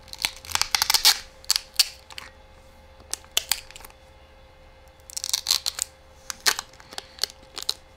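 Adhesive tape being peeled off a pack of three series-wired 3.6 V lithium-ion cells: quick crackling clicks in two spells of about two seconds each, with a quieter pause between them.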